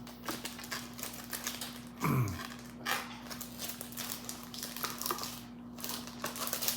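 Trading cards and their foil pack wrappers being handled: a quick, irregular run of light clicks, flicks and rustles as cards are slid and shuffled. A brief low sound falling in pitch comes about two seconds in.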